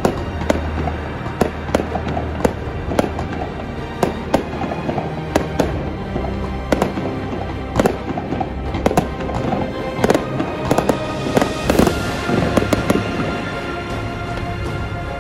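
Fireworks display: aerial shells bursting in a quick, irregular series of sharp bangs, with a spell of crackling hiss about three-quarters of the way through. Background music plays underneath.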